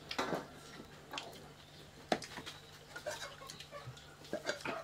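Eating sounds as rice is worked and eaten by hand from plates: small mouth and hand noises, with a sharp click about two seconds in and several clinks near the end as a steel pot lid is lifted and a spoon serves greens.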